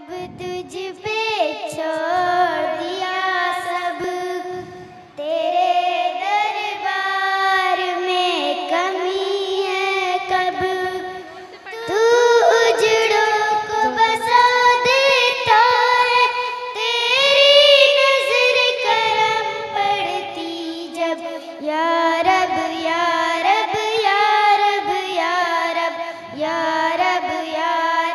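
Two young girls singing a song together into handheld microphones, with short pauses about five and twelve seconds in.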